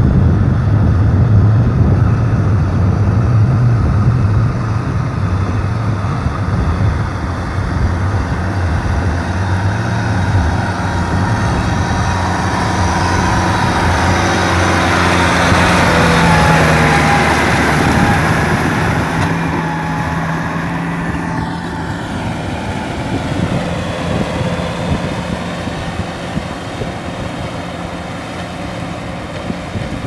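Kubota M6040 tractor's four-cylinder diesel engine running under load while ploughing a muddy paddy field. The engine note shifts in pitch as it works and is loudest around the middle.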